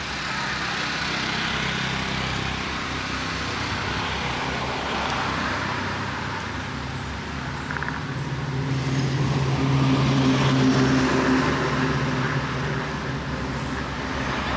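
Motor vehicle engine running with road traffic noise, a low engine hum that grows louder partway through as a vehicle comes close.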